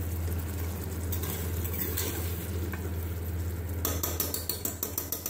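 Steel ladle stirring and scraping chicken curry masala frying in an aluminium pressure-cooker pot, with a steady sizzle over a low hum. The masala is being fried uncovered to cook off its liquid. Near the end comes a quick run of sharp ladle scrapes and clinks against the pot.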